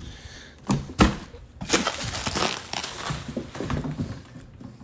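Cardboard box being knocked and handled: one sharp thud about a second in, then scraping and crinkling of the cardboard with a few smaller knocks.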